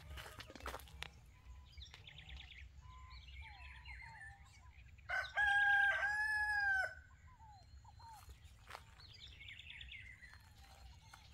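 A rooster crowing once, a loud crow of nearly two seconds starting about five seconds in, rising and falling in two parts. Fainter small-bird chirps come before and after it.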